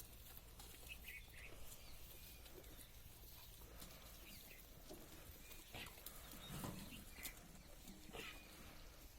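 Faint goat sounds: mostly quiet, with one low goat bleat about six and a half seconds in, a few short high chirps and scattered light clicks.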